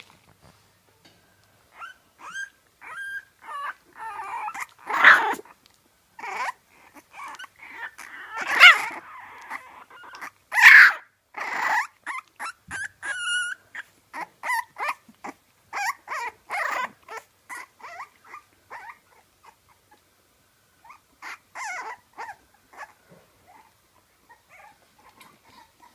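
French Bulldog puppy whimpering in a long string of short, high whines, with three louder yelping cries in the first half and a brief lull before the whines start again.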